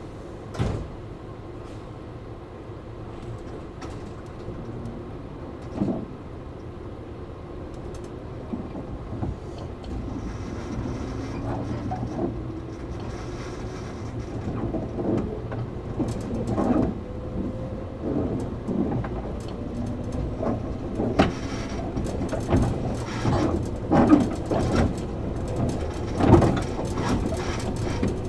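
Inside the car of a JR 113 series electric train, pulling away from a station: after a steady idle with a couple of sharp knocks, the traction motors' hum rises in pitch from about ten seconds in as the train accelerates. Later the wheels knock over rail joints, louder and more often as the speed builds.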